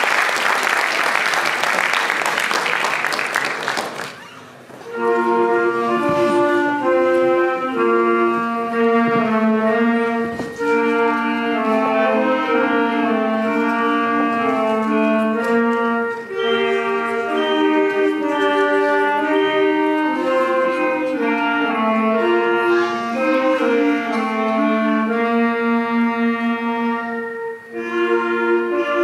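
Audience applause dies away in the first four seconds. About five seconds in, a student wind band led by clarinets starts playing a piece in several parts, held notes moving together in chords.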